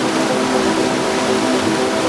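Heavy rain falling steadily in an even rushing hiss, with a steady low droning hum underneath.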